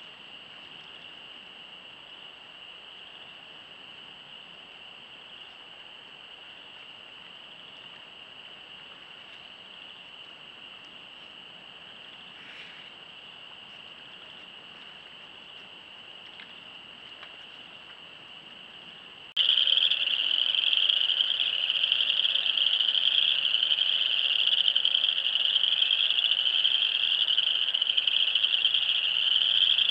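A dense chorus of small frogs calling, a steady high-pitched din that suddenly gets much louder about two-thirds of the way through, where one recording cuts to the next.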